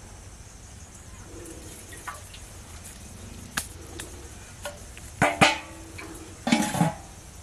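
Scattered light clicks and knocks, then two louder clanks of a metal pot being handled, each with a brief ring, about five seconds in and again near the end.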